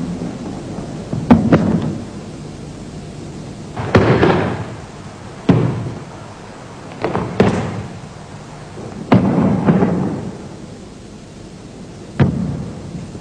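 Sharp thuds and slaps of a Bajiquan two-person application drill, from strikes landing, feet stamping and bodies colliding. There are about nine impacts at irregular intervals, some in quick pairs, several with a short rumbling tail, over a steady tape hiss.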